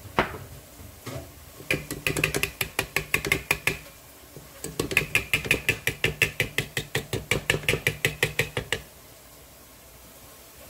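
Flour being sifted through a round metal mesh sieve, heard as two runs of rapid metallic clicking, about eight clicks a second, with a short pause between them. A single knock comes right at the start.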